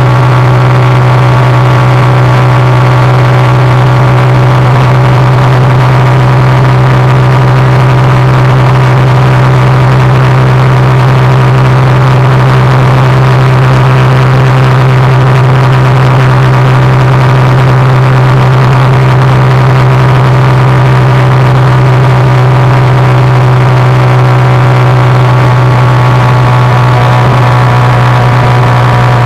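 A 100cc motorcycle engine running at a constant high speed, a loud, unchanging drone with no change in pitch.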